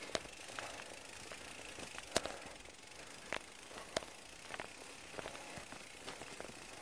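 Bicycle walked on foot through deep mud: irregular clicks and knocks from the bike and the rider's steps, over a steady hiss.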